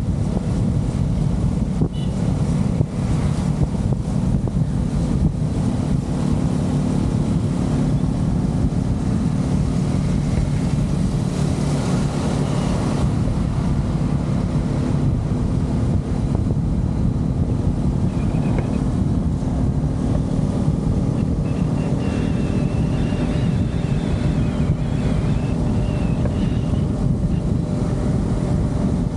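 Yamaha R15 V3 motorcycle's single-cylinder engine running steadily at cruising speed, with wind noise on the helmet-mounted microphone.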